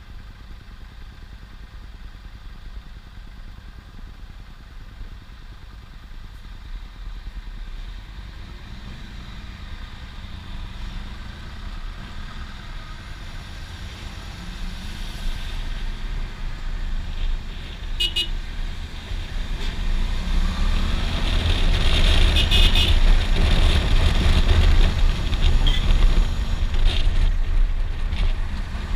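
Suzuki V-Strom 650 XT's V-twin engine idling quietly, then pulling away and accelerating, growing steadily louder with wind noise on the microphone as speed builds. A short horn toot sounds a little past halfway.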